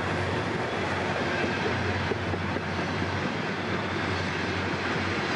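Burlington Northern diesel locomotives hauling a heavy container train under load. The engines run with a steady low drone over rail and wheel noise.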